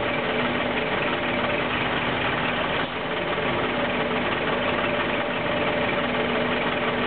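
Heavy truck tractor unit's diesel engine idling steadily, with a constant low hum.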